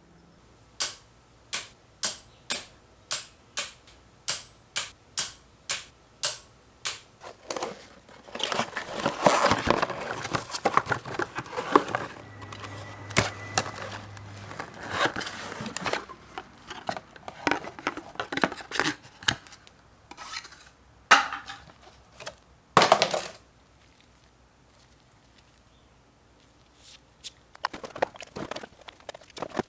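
Hand tools and metal engine parts being worked during a spark plug and coil pack change: a run of sharp, evenly spaced clicks at just under two a second, then a stretch of clattering and rubbing, with scattered knocks and two louder clunks.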